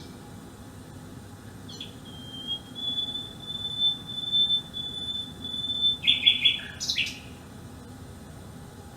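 Common nightingale singing: a click, then one long, steady whistled note lasting about four seconds, then a quick burst of rapid repeated notes about six seconds in.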